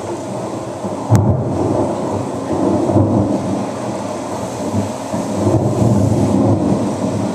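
Recorded rain-and-thunder sound effect played over a hall's loudspeakers: a steady hiss of rain with rolling low rumbles of thunder and a sharp crack about a second in.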